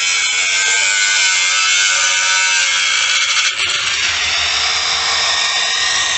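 Electric angle grinder with a cutting disc cutting into the sheet-metal muffler box that holds a motorcycle's catalytic converter, giving a loud, steady high-pitched grinding hiss. There is a short break in the cut about halfway through as the disc is lifted off the metal.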